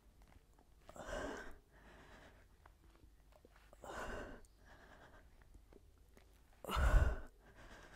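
A woman's heavy breathing during a core exercise: three strong, breathy exhales about three seconds apart, one with each leg extension, with fainter inhales between. The last exhale is the loudest.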